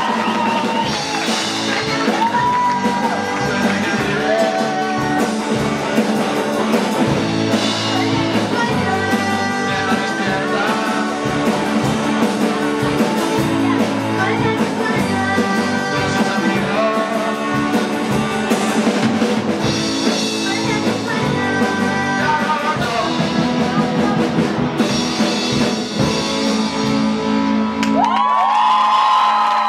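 Student rock band playing live: sung lead vocals over electric guitars, bass, drum kit and keyboard, with a steady beat. Near the end the drumming stops and the band holds a last chord.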